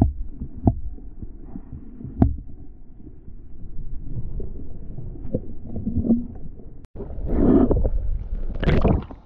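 Irregular low knocks and thumps of handling in and against a kayak while a caught Australian bass is put back in the water, with a louder stretch of splashing and handling noise near the end.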